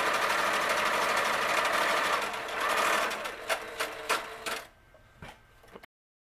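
Singer 7426 sewing machine stitching at high speed with a fast, steady running sound. About three seconds in the running dies away, leaving a few sharp clicks and knocks, and near the end the sound cuts out completely.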